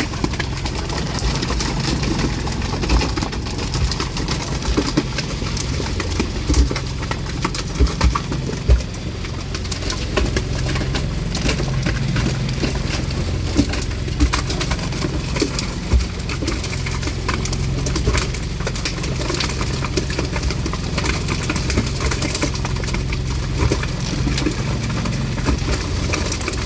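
A boat's engine or generator running steadily with a low hum, under scattered knocks and thuds of work on a wooden deck.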